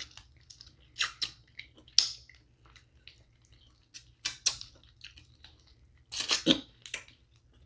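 Close-miked eating of snow crab legs: scattered sharp crackles as shells are cracked and meat pulled out, with wet mouth smacks and sucking as sauce is licked off fingers. The loudest cluster of smacks comes about six seconds in.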